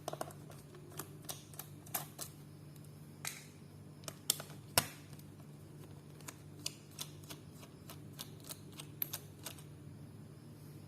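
Irregular light clicks and taps of a small screwdriver and screws against a notebook's plastic bottom case as the case screws are taken out, with a couple of sharper ticks about four and five seconds in.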